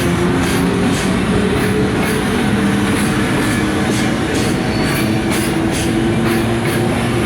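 Container freight train departing, its wagons rolling past on the rails as a steady rumble. Several steady squealing tones from the wheels sit over the rumble.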